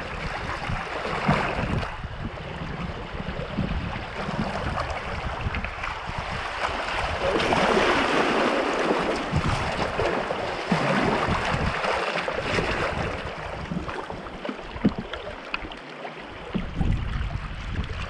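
Rushing water of a river rapid around a canoe, with the splash of paddle strokes; the rush swells louder in the middle. Wind buffets the microphone with a low, uneven rumble that drops out for a moment a few times near the end.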